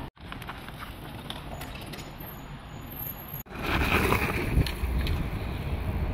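Outdoor riding noise from a fat-tyre electric mountain bike: wind rushing over the microphone with tyre rumble. The sound comes in edited clips that break off abruptly, and the clip from about halfway in is louder, with heavier low rumble.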